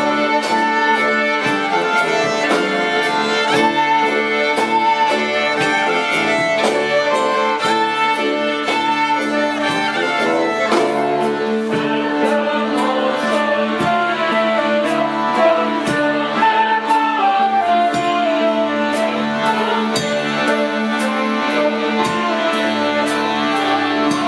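Live acoustic ensemble playing: violin and flute melody over accordion and a held low note, with a steady beat.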